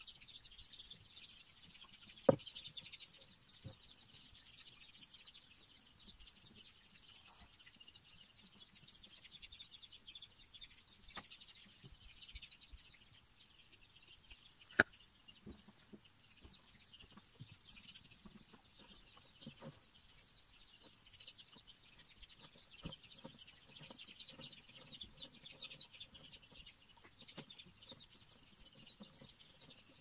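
Steady high-pitched outdoor drone of insects with faint bird chirps, over light clicks and taps from a cord being tied onto a wooden stick. Two sharp clicks stand out, one about two seconds in and one halfway through.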